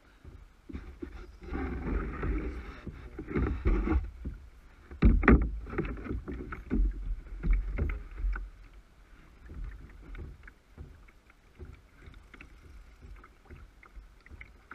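Handling noise in a plastic kayak during a fight with a big fish: knocks, rubs and rustles of the angler and his gear against the hull over a low rumble. The loudest burst comes about five seconds in, and it settles down in the second half.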